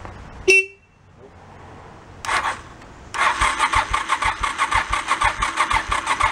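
A sharp click about half a second in and a short burst around two seconds, then a Honda Shadow V-twin's electric starter cranking the engine over steadily, about three compression pulses a second, without it firing. The starter is powered from a jumper pack, and the engine has no fuel in it.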